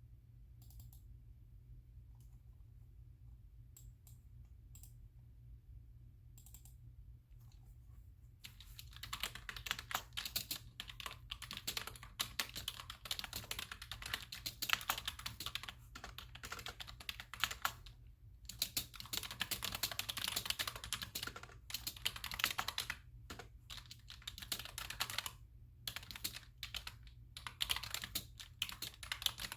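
Computer keyboard being typed on: a few scattered key clicks at first, then about eight seconds in, rapid continuous typing in fast runs with brief pauses between them.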